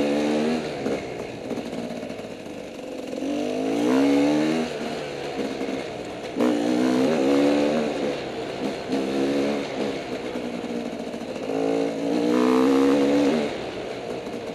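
Off-road motorcycle engine revving in repeated bursts, pitch rising and falling as the throttle is opened and closed about five times. A couple of sharp knocks come from the bike over rough ground.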